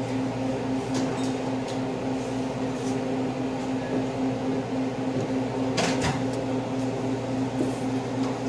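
Steady low hum of an indoor shooting range's ventilation system, with a few faint clicks and one sharper knock about six seconds in.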